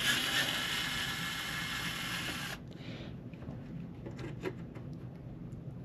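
Cordless electric screwdriver with a JIS bit running for about two and a half seconds, backing a screw out of the power supply, then stopping suddenly; light clicks and taps of parts being handled follow.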